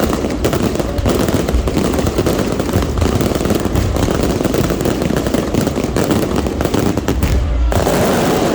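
Aerial fireworks going off in a dense, unbroken volley of rapid bangs and crackles.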